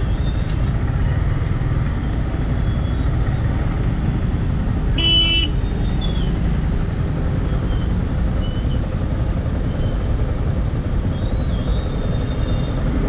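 Traffic-jam noise: a steady rumble of vehicle engines. A vehicle horn honks once, briefly, about five seconds in, and fainter short horn toots are scattered around it.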